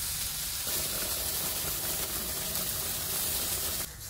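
Chicken fillets frying in a cast-iron skillet: a steady sizzling hiss that drops away shortly before the end.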